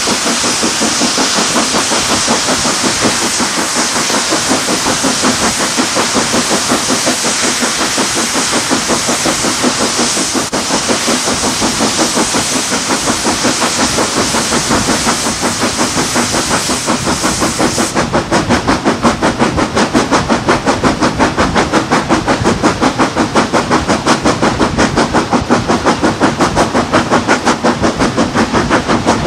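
Steam locomotive working hard, its exhaust beating in a steady rhythm with train running noise underneath. A loud steady hiss of steam runs over the beats and cuts off suddenly about two-thirds of the way through, leaving the sharp exhaust beats on their own.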